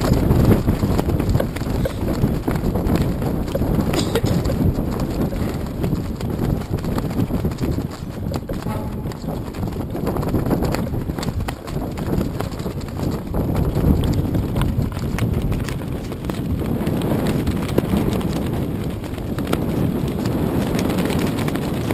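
Steady low rumble of wind and harbour water, picked up through a GoPro's housing, with frequent soft, irregular knocks.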